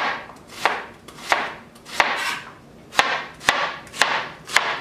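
Chef's knife dicing an onion on a plastic cutting board: about eight sharp chops, roughly one every half-second, each a tap of the blade on the board with a short crunch of onion.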